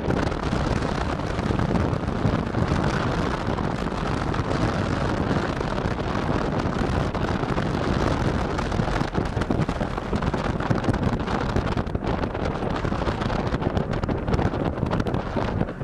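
Steady wind rush on the microphone of an open WWII jeep while it drives, with the jeep's engine and road noise underneath.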